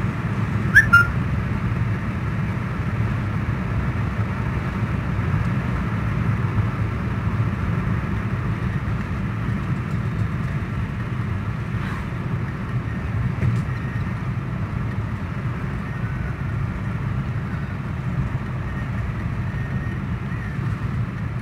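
Steady in-cabin road noise from a car driving: a low hum of engine and tyres. A brief sharp chirp sounds about a second in.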